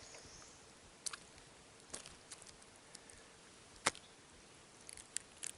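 Faint scattered clicks and taps, the sharpest one about four seconds in and a few more close together near the end, over a quiet outdoor background.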